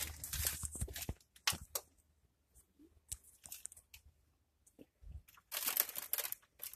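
Irregular rustling, scraping and crinkling handling noises in short bursts: a cluster at the start, scattered bits in the middle, and a denser run about five and a half seconds in.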